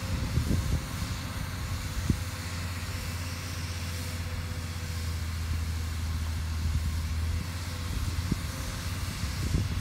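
Rosenbauer LF 20 fire engine's diesel engine running steadily while it drives the fire pump in pump-and-roll operation, with the hiss of its water spray over the low drone. A sharp knock comes about two seconds in, with a few fainter ones later.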